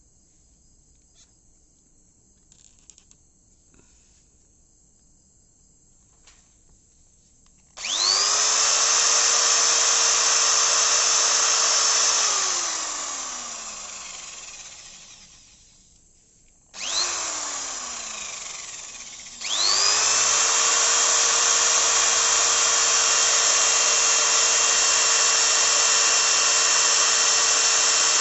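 Electric drill motor spinning up with a rising whine about eight seconds in, running steadily for about four seconds, then released and winding down with a falling whine over several seconds. It is triggered again briefly, winds down, then starts once more and runs steadily. Faint ticks and clicks before the first start.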